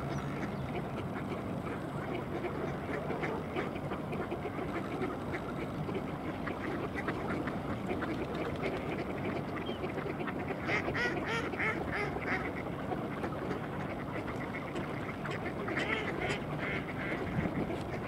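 A large flock of mallards quacking and chattering on the water as a continuous babble, with bursts of louder calls about 11 and 16 seconds in.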